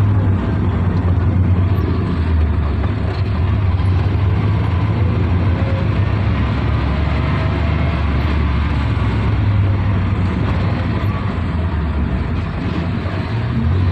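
Steady low engine rumble and road noise heard from inside a moving vehicle's cabin, in city traffic.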